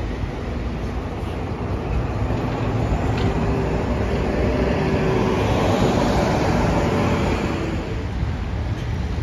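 Articulated city bus driving past close by in street traffic: its engine and drivetrain rumble swells as it passes, with a steady hum over the roadway noise, then fades.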